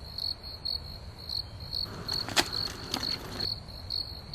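Crickets chirping in repeated pulses at one high, steady pitch. About two seconds in there is a brief breathy rush with two sharp clicks.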